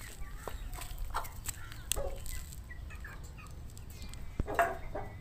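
Chickens clucking in short, scattered calls, with the loudest call near the end. Two sharp clicks come about two seconds in and again near the end.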